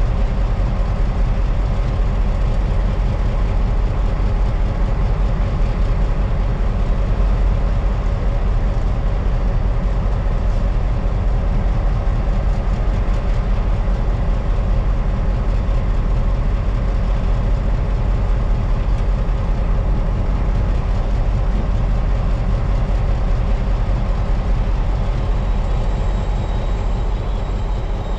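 Ore train running: a steady, low rumble of diesel locomotive engines and wheels on rail.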